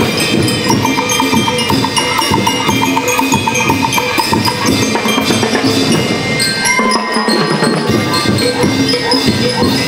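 School rhythm band playing a march: bell lyres (marching glockenspiels) carry the melody over a steady beat of marching drums. A quick run of repeated high lyre notes fills roughly the first half.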